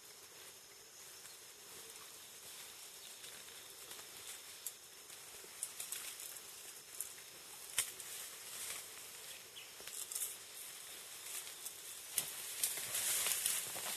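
Leaves and vines rustling with scattered light twig crackles as a young mountain gorilla climbs and swings in the vegetation, over a steady faint forest hiss; the rustling grows louder near the end.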